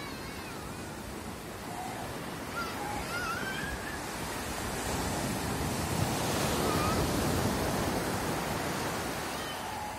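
Small surf waves breaking and washing up the sand at the water's edge, the wash swelling to its loudest about seven seconds in and then easing off.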